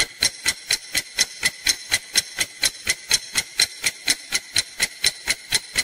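Clock-ticking sound effect for a countdown timer: rapid, evenly spaced ticks, about five a second.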